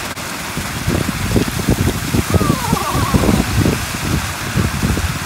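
Fountain water jets splashing into a pool: a steady hiss of falling water with many small irregular splashes, growing busier about a second in.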